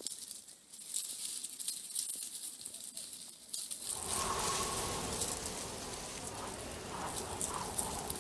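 Nine-banded armadillos rooting through dry leaf litter: light, rapid rustling and crackling, growing fuller and louder about four seconds in.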